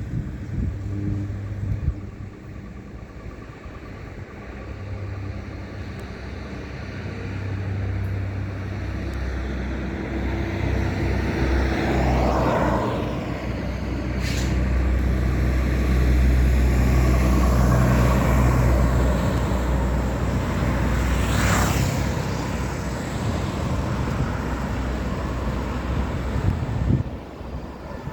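Airbus A320 jet airliner on landing approach, its engine noise swelling to a loud peak about halfway through as it passes, then easing off.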